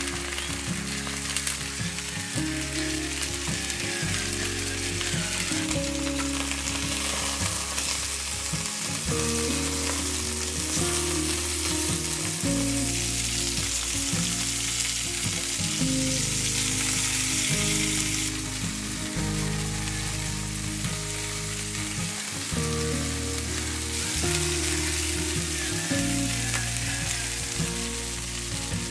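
Chicken drumsticks frying in oil in a cast-iron pan: a steady sizzle, over soft background music.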